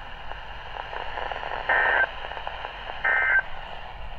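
NOAA Weather Radio EAS/SAME end-of-message signal: two short bursts of digital data tones, each about a third of a second, a little over a second apart, over faint radio hiss. They mark the end of the alert message.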